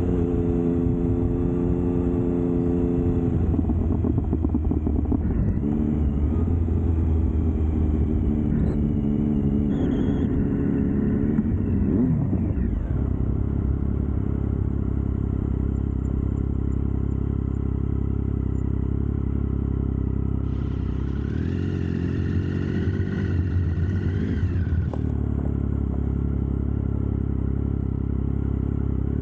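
Triumph Speed Triple's three-cylinder engine running steadily. Its pitch shifts a few times, and a brighter stretch of rising tones comes about three-quarters of the way through.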